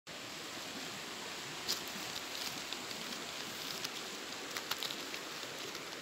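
Steady rushing of a creek, with a few sharp clicks of pebbles knocking together underfoot, the clearest about a second and a half in.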